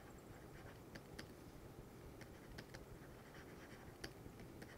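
Faint, irregular taps and light scratching of a stylus writing on a pen tablet, over low background hiss.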